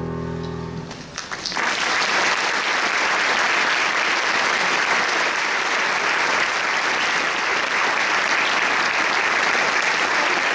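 A choir's final held chord dies away in the first second, then audience applause breaks out and continues steadily.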